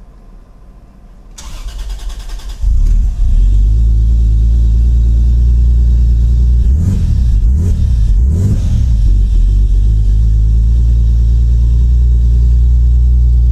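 Toyota Supra's 2JZ-GTE straight-six is cranked by the starter for about a second, catches, and runs loud and steady. A few short revs come around the middle.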